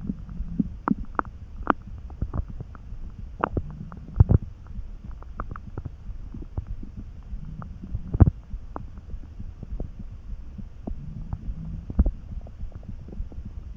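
A hungry human stomach churning: a low rumble with many small pops and short gurgles, and sharper pops about four, eight and twelve seconds in. The gurgling is the stomach working while empty, some hours after lunch.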